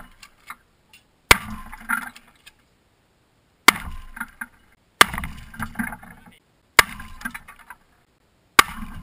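Five Benelli shotgun blasts hitting a Toshiba laptop, each a sharp crack followed by a short clatter and tinkle of shattering plastic and glass fragments. They come every one to two seconds, with dead silence between them.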